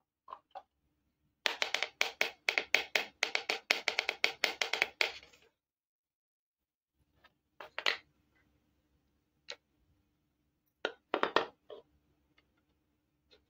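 Small plastic toy kitchen pieces clicking and clattering as they are handled: a fast run of light clicks, about five or six a second, lasting about four seconds, then a few separate clacks as pieces are set down on a hard board.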